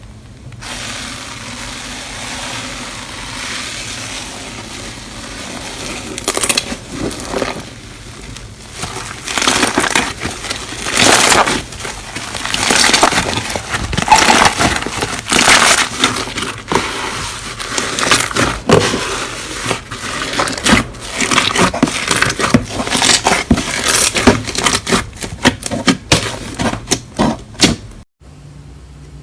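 Slime being squeezed and worked by hand, crackling, popping and crunching in dense irregular clicks. It starts as a steadier hiss and grows louder and more clicky about six seconds in.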